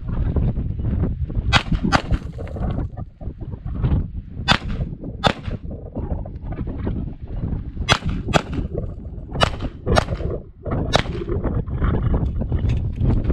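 Pistol shots fired during a timed IDPA course of fire: about ten sharp reports, mostly in pairs about half a second apart, with gaps of a second or two between pairs as the shooter moves between targets.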